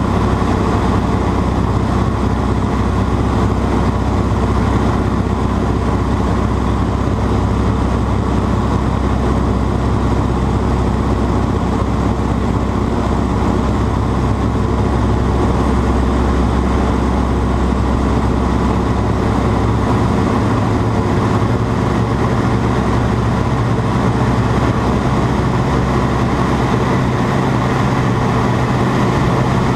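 Grumman Ag-Cat crop-duster's engine running steadily: a loud, continuous drone with a strong low hum. The deepest part of the hum weakens about two-thirds of the way through.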